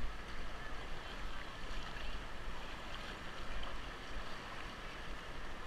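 Steady rushing of Ocoee River whitewater around an inflatable raft as the crew takes called forward paddle strokes.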